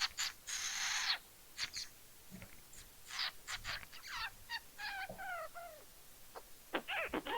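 A young child's voice making screechy, cawing calls that slide down in pitch, with a breathy hiss about half a second in: play noises for a fire-breathing creature.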